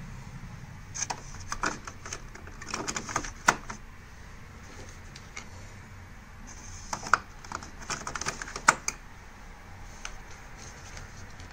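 Plastic clicks and rattles of ink cartridges being handled and snapped into the ink bay of a Brother MFC-J6930DW printer, in two bursts. The sharpest snaps come about three and a half seconds in and twice more between seven and nine seconds in. Each click is the sign that a cartridge has seated properly.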